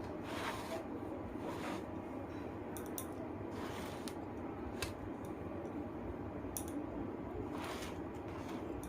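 Eating sounds from a plate of rice and chicken curry: short wet squishing and chewing sounds, about seven separate ones, over a steady low hiss.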